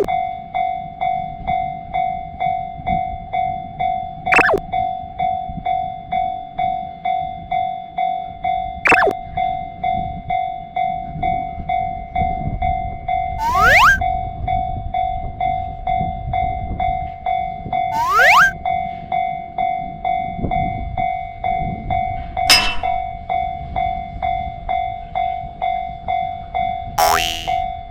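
Railroad crossing warning bell ringing continuously in rapid, even strokes. A train rumbles past through the middle, and short sweeping sounds come about every four to five seconds.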